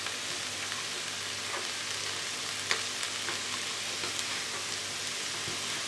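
Sliced mushrooms and onion sizzling in oil in a multicooker bowl on its frying setting, a steady hiss. A few faint knife taps on a wooden cutting board sound over it as chicken breast is cut.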